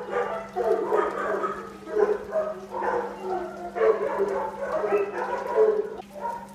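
Dogs growling and yapping in short, irregular bursts as they scuffle: a pit bull against a German shepherd and another pit bull. A faint steady hum lies underneath.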